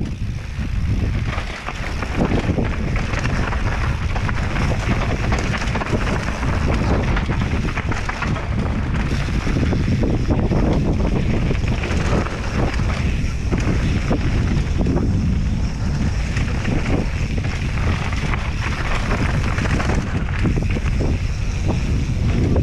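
Mountain bike riding a dirt trail: wind buffeting the microphone over steady tyre rumble and frequent rattles and knocks from the bike over rough ground.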